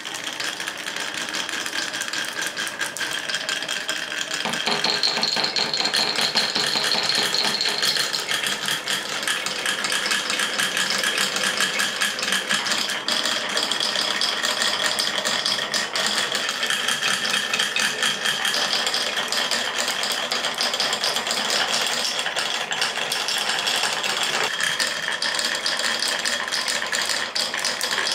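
Many glass marbles rolling down the wavy grooved tracks of a wooden block marble run, a dense continuous clatter of clicks and knocks with a faint ringing. The clatter grows fuller about four to five seconds in as more marbles reach the lower tracks.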